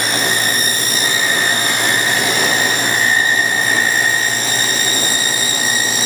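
Power saw running and cutting rabbet joints into wooden beehive box ends: a steady high whine over the noise of the cut.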